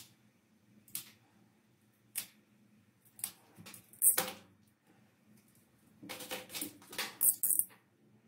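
Craft knife slitting the plastic shrink wrap on a CD case, with short sharp scratches and crinkles of the plastic. A few single strokes come about a second apart, the loudest about four seconds in, then a quick run of strokes near the end.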